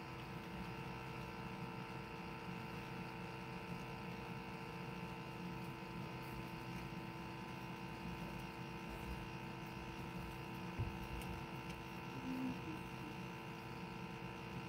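A steady, faint hum made of several constant tones, with a single soft knock about eleven seconds in.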